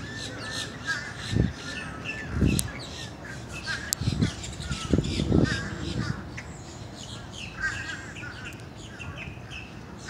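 A busy chorus of wild birds, many short calls and chirps overlapping without a break, with a few soft low thumps from the walker's steps.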